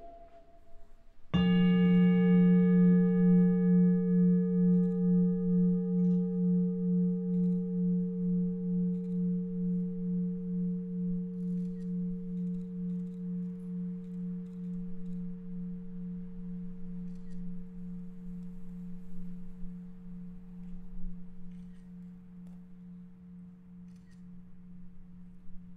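A large bowl bell struck once about a second in, ringing with a low main tone and several higher overtones that pulse slowly as the ring fades over some twenty seconds.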